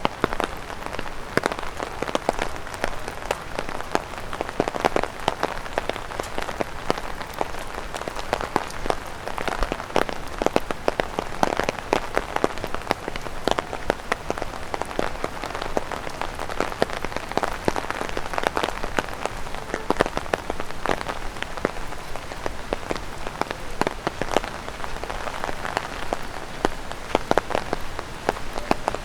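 Rain, and drops falling from overhanging tree leaves, tapping on an umbrella: a dense, irregular tap-tap over a steady hiss of rain.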